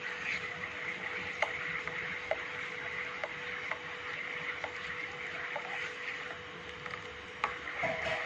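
Black slotted spoon stirring a thick milk and milk-powder mixture in a granite-coated nonstick kadhai, with soft knocks and scrapes against the pan about once a second over a steady hiss and faint hum.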